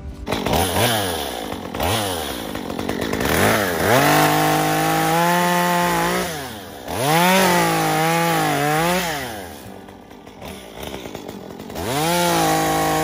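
Two-stroke gas chainsaw blipped twice, then run at full throttle through fallen tree limbs in three long stretches, dropping back to idle between them. Its pitch wavers and sags as the chain bites into the wood.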